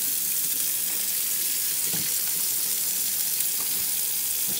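Kitchen faucet running, its stream pouring into a stainless steel sink and over a puppy being washed: a steady splashing hiss with a few faint knocks.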